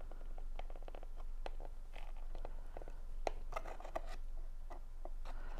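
Stiff cardstock being handled: scattered small crackles and clicks of paper as a glue-sticky cardstock handle is worked into snug slits in a paper model, over a low steady hum.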